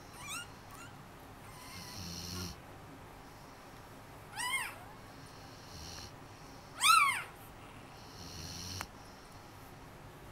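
Puppies making snuffly, snore-like breaths with two short high squeals that rise and fall in pitch, one near the middle and a louder one a little later.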